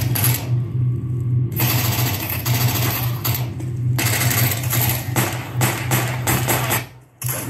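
Fifine AmpliGame A22 2.1 speaker system (subwoofer with two stereo satellites) playing demo audio: a steady deep bass tone under loud, rushing noise surges that come and go. The sound drops out about seven seconds in and comes back just before the end.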